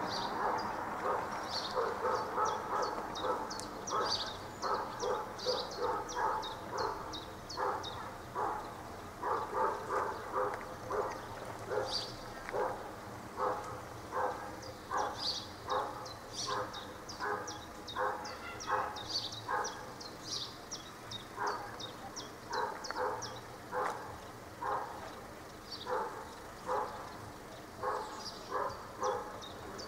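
A dog barking over and over in a steady series, about two barks a second, with brief pauses.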